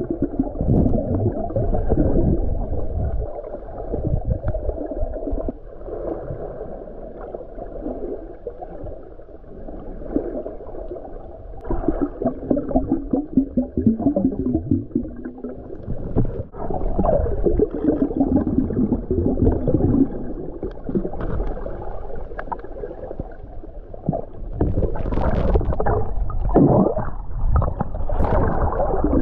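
Muffled underwater sound picked up by a submerged camera: water gurgling and moving around it, with low rumble and a few slowly wavering hums.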